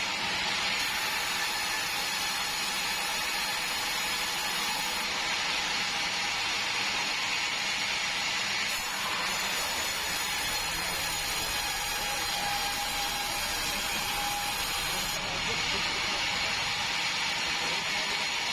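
Sawmill saw running and cutting timber: a steady, loud hissing machine noise whose character changes abruptly a few times.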